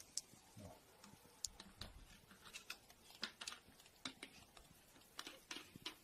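Faint, irregular clicks and taps of a crow's beak pecking at a hand-held plastic bottle, its cap and neck.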